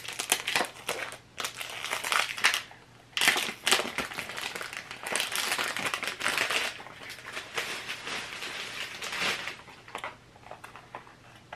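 Cellophane wrapping crinkling and crackling as it is peeled and crumpled off a perfume box, in irregular handfuls with a short pause about three seconds in, thinning out near the end.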